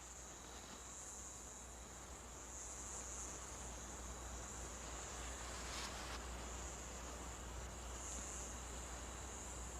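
A faint, steady, high-pitched chorus of chirring insects that swells a little now and then.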